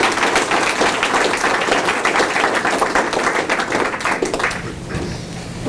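Audience applauding, the clapping thinning out and dying away about four to five seconds in.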